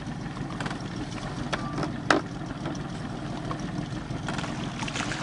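A small boat's motor idling with a steady low rumble, and a sharp knock about two seconds in.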